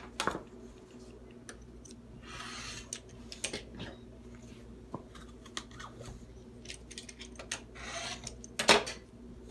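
Rotary cutter slicing through fabric along an acrylic ruler on a cutting mat, in two short hissing strokes, with small clicks as the ruler and fabric are handled. A sharp knock near the end.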